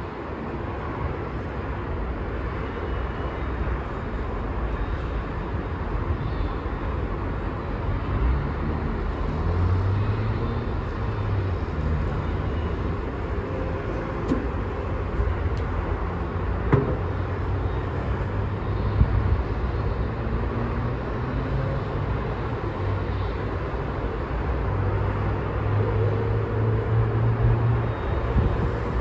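City road traffic: a steady wash of cars with low engine hum, swelling as heavier vehicles pass about ten seconds in and again near the end. One sharp click partway through.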